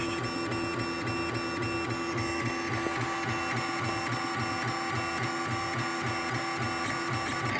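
3D printer running a print job: its motors drive the print head and bed back and forth with a fast, even pulsing, over a steady whine.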